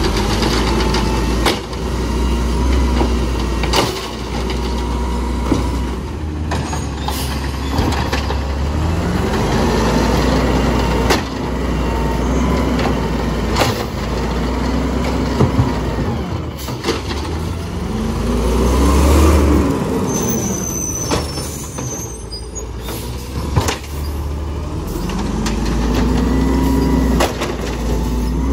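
Automated side-loader garbage truck working its cart-lifting arm. The diesel engine revs up and falls back several times as the hydraulic arm cycles, with sharp bangs as the carts are slammed at the top to knock the trash loose and set back down.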